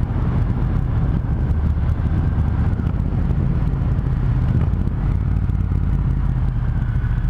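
Triumph Thunderbird Storm's parallel-twin engine running steadily while riding, with wind noise on the microphone.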